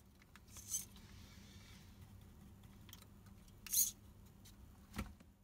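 Hands handling the plastic body and head of a Bittle robot dog: two brief scraping rustles of plastic, then a single sharp click near the end, over a faint steady low hum.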